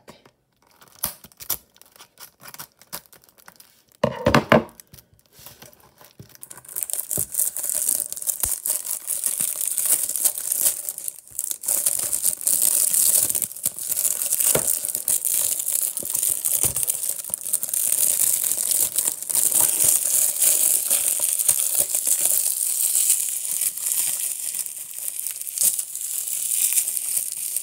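Plastic shrink-wrap being torn and peeled off a Blu-ray case. A few small clicks and a short scrape come in the first seconds, then from about six seconds in a continuous crinkling crackle of the film.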